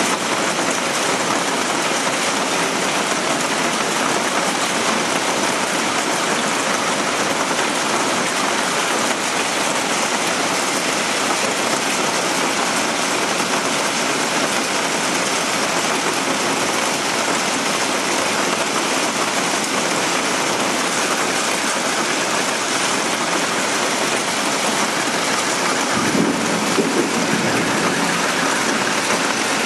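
Hail mixed with rain pelting a sheet roof and a street, a dense steady hiss. A short low rumble comes in near the end.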